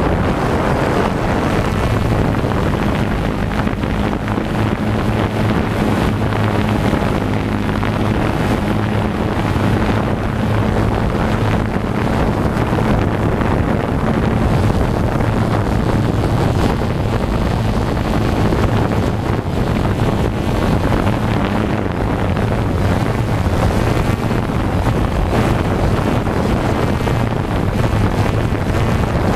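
DJI Phantom 2 quadcopter's electric motors and propellers running steadily in flight, picked up by the GoPro mounted on the drone: a steady hum that wavers slightly in pitch, under a rush of wind noise on the microphone.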